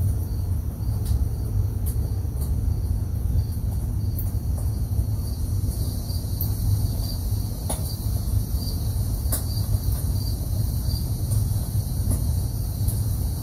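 Insects chirping and trilling, with a repeating high chirp that becomes regular about halfway through, over a loud, steady low rumble.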